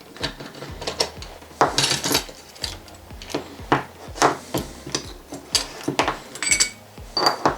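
Metal clutch parts of a Vespa PX 200 (plates, springs, washers) clinking and knocking against each other and the bench as they are handled and set down, an irregular string of sharp clicks.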